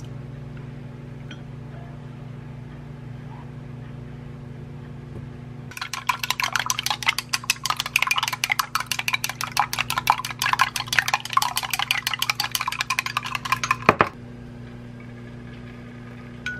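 Wooden chopsticks rapidly beating eggs in a glass mug. From about six seconds in, a fast clatter of clicks against the glass runs for about eight seconds and then stops. A steady low hum runs underneath throughout.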